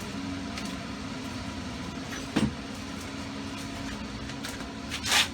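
Hand wrenches being handled, with a sharp metallic knock about two seconds in and a louder brief rattle near the end, over a steady background hum.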